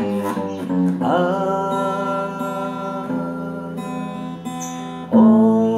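Slow acoustic guitar music with long held notes; a new chord or note swells in louder about five seconds in.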